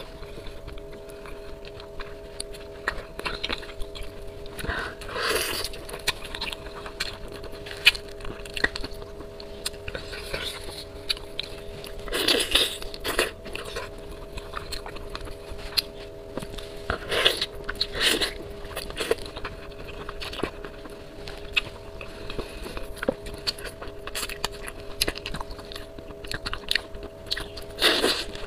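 Close-up eating sounds of bullfrog in sauce: wet chewing, sucking and small clicks of the lips as the meat is pulled off the bones, with louder slurps now and then. A faint steady hum runs underneath.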